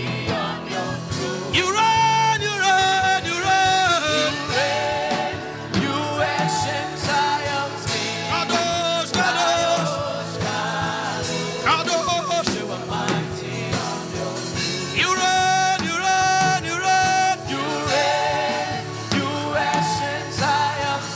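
Gospel worship music: a singing voice holding long, wavering notes over a backing band.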